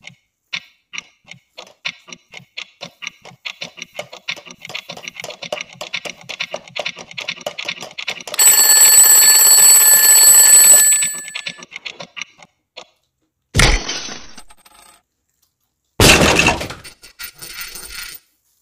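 Fast, regular ticking that grows denser, then a loud ringing alarm bell for about two and a half seconds, followed by two short loud noises. It is much louder than the eating around it and sounds like an added sound effect.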